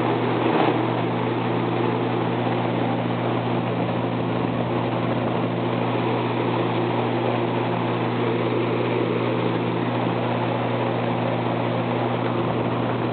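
Vintage Robeson box fan running on low with a Lasko 3733's plastic blade fitted, moving a lot of air: a steady rush of air over an even motor hum.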